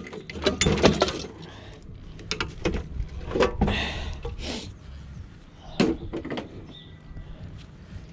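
Irregular metal knocks, clanks and brief scraping as parts of an old boiler are worked loose by hand and tools.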